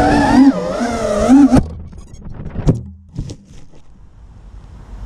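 A 5-inch FPV racing quadcopter's brushless motors (EMAX 2306, 2400 kV) and props whine, the pitch rising and falling with the throttle. About a second and a half in, the whine stops with a sharp hit as the quad crashes into undergrowth. A few short knocks and brief buzzes follow.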